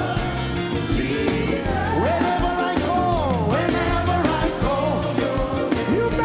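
Live gospel worship music: a lead singer's voice swooping up and down in long glides over a band with steady bass and drums.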